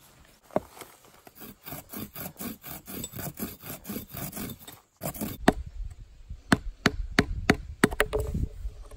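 Steel axe head scraped back and forth across a rock in quick, even strokes. After a cut, a metal head knocks sharply on a piece of wood, about a dozen separate strikes.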